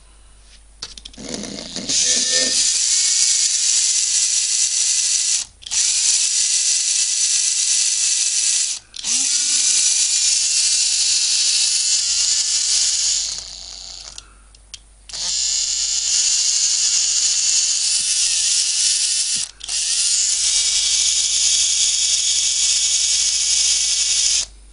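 Makita cordless screwdriver's small brushed DC motor, out of its housing and wired to the trigger switch, running at full speed with a high whine and brush hiss. It is a test run on freshly repaired carbon brushes. It starts about two seconds in, stops and restarts briefly four times, and cuts off near the end.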